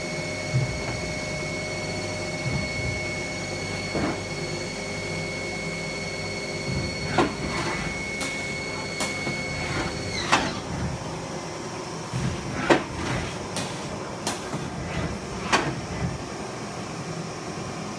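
2004 Haas SL-10T CNC lathe running a program: a steady machine hum with a high whine that drops in pitch and cuts out a little past halfway. Sharp clicks and knocks come at irregular intervals throughout.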